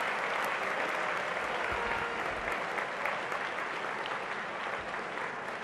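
A large seated audience applauding, the clapping slowly fading.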